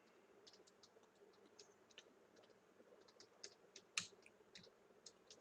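Faint, irregular clicks of a computer's keys and mouse, with one sharper click about four seconds in, over near silence.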